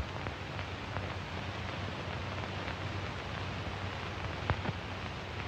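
Steady hiss of an old film soundtrack between scenes, with a few faint clicks about four and a half seconds in.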